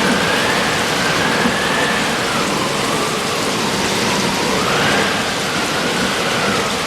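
Rainstorm sound effect: a steady, loud rush like heavy rain, with a faint whistle slowly rising and falling through it.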